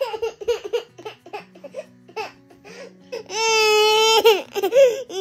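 One-year-old boy crying: short fussy sounds at first, then about three seconds in a long, loud wail followed by shorter sobbing cries. It is a cranky cry that his mother takes as the start of tiredness before a nap.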